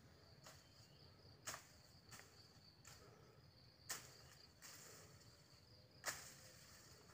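Faint, steady high insect trill, with three sharp clicks spaced about two seconds apart standing out above it.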